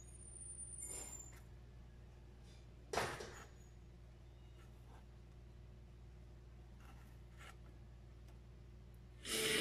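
Light fingertip taps and one sharper click, about three seconds in, on the touchscreen of an Android double-DIN car stereo, over a faint steady low hum. Music starts abruptly near the end.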